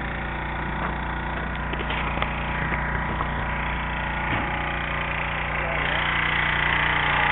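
An engine idling steadily with an even hum, growing louder about six seconds in.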